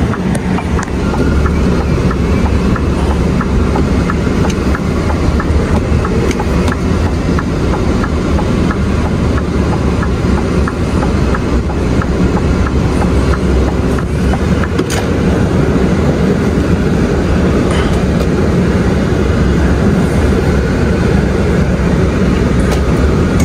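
Scania V8 truck engine running steadily, heard from inside the cab as the truck moves slowly. Cab air conditioning blows over it, with a few scattered clicks and knocks.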